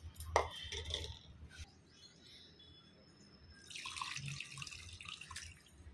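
A little water poured from a steel tumbler over a hand into a bowl of raw fish pieces in tamarind and spice paste, splashing for about two seconds in the second half. Before that, a few faint clicks.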